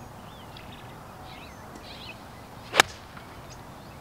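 A golf iron swung at a ball: a brief swish of the club, then one sharp crack as it strikes the ball about three quarters of the way through. Birds chirp in the background.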